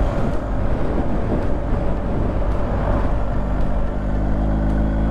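BMW R 1250 GS Adventure Rally's boxer-twin engine running as the motorcycle rides along, with wind noise over the microphone. The engine note wavers at first, then settles into a steady hum near the end.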